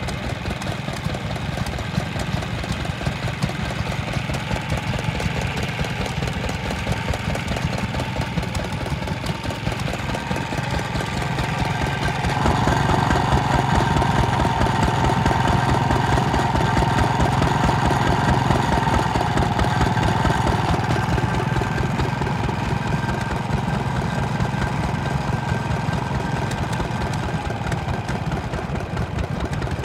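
Vintage stationary engines running steadily with rapid, even firing. About twelve seconds in, a steady whine joins and the sound grows louder for several seconds before easing back.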